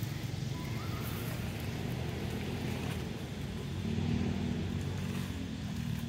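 A steady low rumble of a running motor engine.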